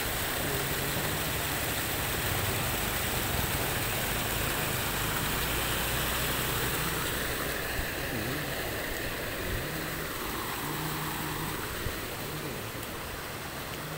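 Swollen, muddy floodwater from heavy rain rushing down a small stream: a steady noisy rush of water that eases a little in the second half.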